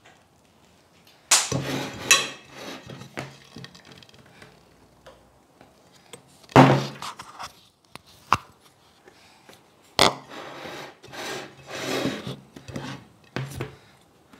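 Metal serving utensils and a porcelain plate being handled: about five sharp clatters and knocks spread through, with scraping and rubbing between.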